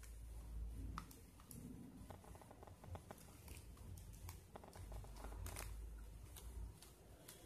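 Flat plastic basket-weaving wire handled and pulled through a woven knot: faint scattered clicks and rustles of the plastic strips rubbing and snapping against each other, over low handling rumble.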